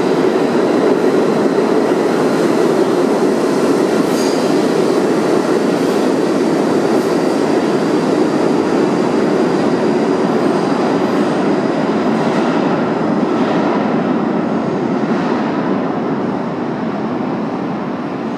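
R46 A express train running through the station on the express track without stopping: a steady heavy rumble with wheel clatter and a faint high wheel squeal, easing off near the end as it moves away.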